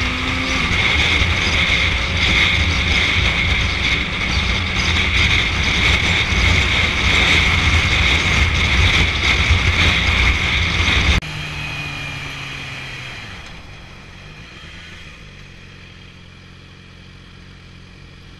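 Motorcycle riding at speed, its engine under heavy wind and road noise on the on-board camera. About eleven seconds in it cuts abruptly to a much quieter motorcycle engine whose pitch falls as it slows in traffic, then runs low and steady.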